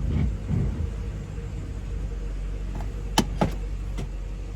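2013 Chevrolet Caprice PPV's 6-litre V8 idling in drive with a steady low rumble. Two sharp clicks come a little after three seconds in.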